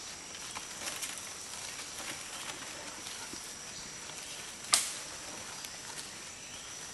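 Steady high drone of forest insects, with scattered small crackles of dry leaf litter as orangutans roll and grapple on the ground. One sharp snap comes a little past the middle.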